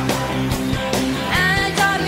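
A live pop-rock band playing, with a steady drum beat and guitar.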